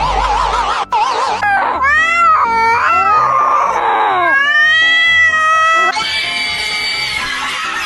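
A cat wailing in long drawn-out meows that bend up and down in pitch, over music. It starts about a second and a half in, after a wavering tone.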